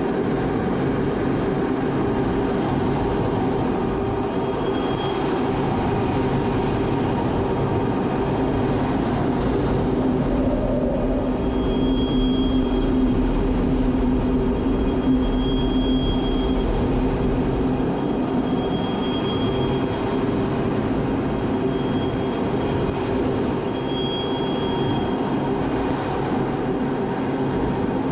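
A steady vehicle rumble with a low droning hum, and short faint high tones every few seconds.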